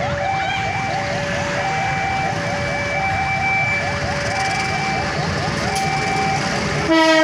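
Level-crossing warning alarm sounding a steady, repeating two-tone pattern while the crossing is closed for a passing train. Near the end the CC 201 diesel locomotive's horn blasts, louder than the alarm.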